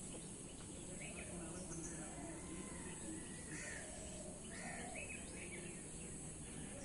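Faint outdoor ambience: birds calling now and then in short calls, over a steady high hiss and low background rumble.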